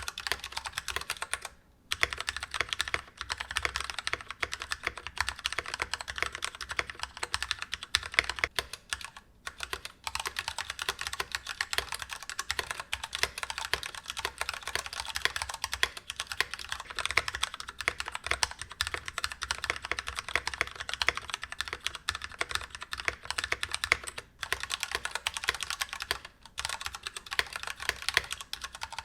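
Fast typing on an assembled NK65 mechanical keyboard: a dense, continuous run of key clacks, with a few brief pauses.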